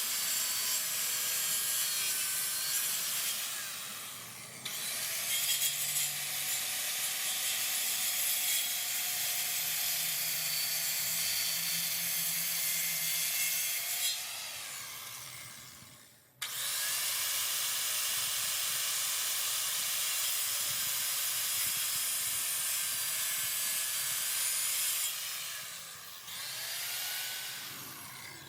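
Power saw cutting into a pine tree trunk, a steady hissing whine of blade through wood. It lets up briefly twice, and around the middle it fades away and then starts again abruptly.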